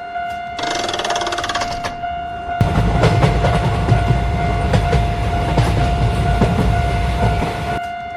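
A train passing for about five seconds: a heavy low rumble with rapid clattering that comes in suddenly about two and a half seconds in and drops away just before the end. Underneath it a steady held tone sounds, and a brief chiming pattern comes near the start.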